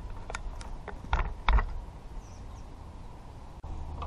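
A few short clicks and knocks of tools and parts being handled on a pickup's tailgate, the heaviest knock about a second and a half in, followed by a quieter stretch.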